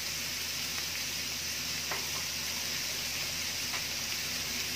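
Cubed squash and ground beef frying in oil in a wok, a steady sizzle with a couple of faint pops.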